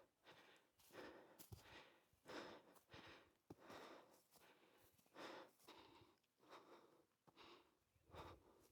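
A person breathing hard while walking uphill, in quick, regular breaths about two a second.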